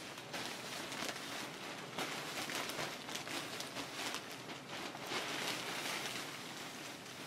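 Clear plastic sheeting of a painting booth rustling and crinkling irregularly as it is pushed aside and handled.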